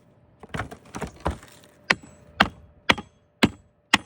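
Hammer striking nails into a cedar roof shake, about eight sharp blows roughly two a second.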